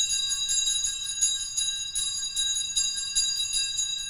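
Altar bells being shaken over and over at the elevation of the consecrated host: bright, high ringing with about three shakes a second. The ringing stops near the end and fades away.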